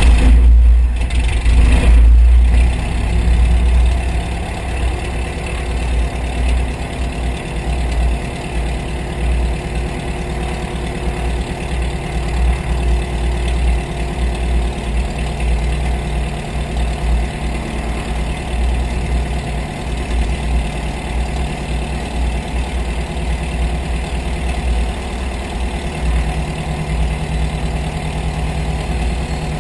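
Van's RV-7 light aircraft's piston engine and propeller running just after start-up, heard close up. The engine runs louder and faster for the first two to three seconds, then settles into a steady idle.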